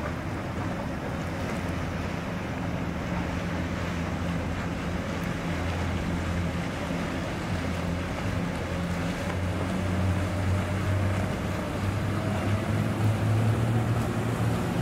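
Boat engines running with a low, steady hum as the vessels move slowly through the harbour, over a wash of water and wind noise. The hum grows a little louder in the second half.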